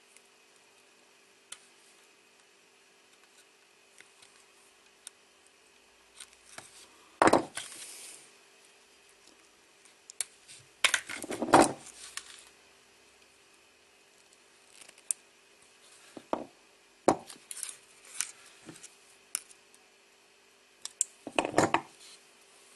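Side cutters snipping excess leads and wire ends on a small circuit board, with the board and tools handled in between: scattered sharp clicks and short clattering bursts, loudest about seven and eleven seconds in.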